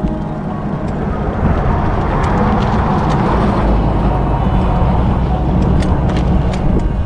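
A road vehicle passing: engine and tyre noise builds to a rush about three seconds in, over a steady low rumble.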